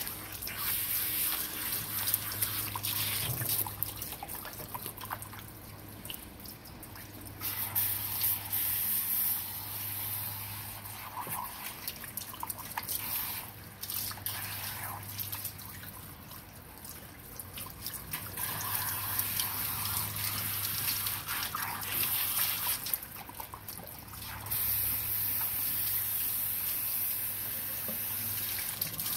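Water from a kitchen sink's pull-down sprayer rinsing a small dog's wet coat and running and dripping down into the sink. The spray gets louder in a few stretches as it comes on harder.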